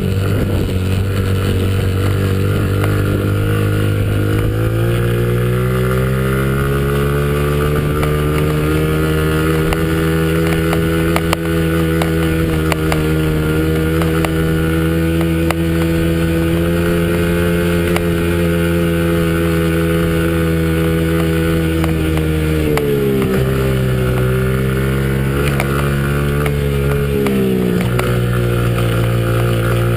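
Small dirt bike's engine running under load, its pitch climbing a few seconds in and then holding steady at speed. Near the end the pitch drops and picks up again twice as the throttle is eased off and reopened.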